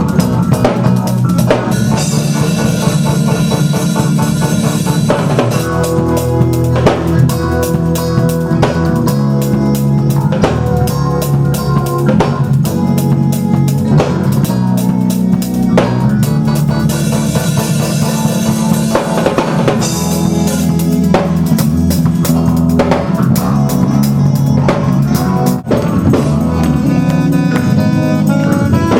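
Live church band playing gospel music, with a drum kit keeping a steady beat under sustained keyboard or organ chords and bass.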